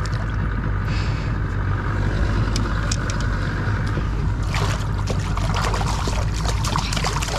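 A caught fish splashing at the water's surface as it is released over the side of a boat, with a quick run of splashes from about halfway in, over a steady low rumble.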